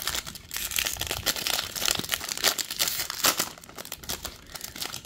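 Foil wrapper of a 2024 Topps Series 2 baseball card pack being torn open and crinkled as the stack of cards is pulled out. The crackling thins out and quietens about three and a half seconds in.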